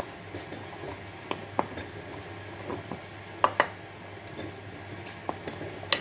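A metal spoon stirring a thick flour, egg and milk batter in a glass bowl, with a few sharp clinks of the spoon against the glass, the loudest a quick pair about three and a half seconds in.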